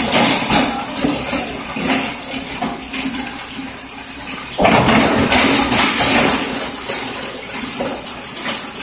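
Bone crusher machine running, a loud rushing, grinding noise that surges suddenly about four and a half seconds in and then slowly eases off.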